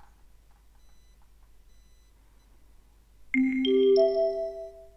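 Three-note rising gong chime from a language-exam recording, signalling that the first message is about to start. The notes are struck about a third of a second apart, starting a little over three seconds in, and ring on together as they fade.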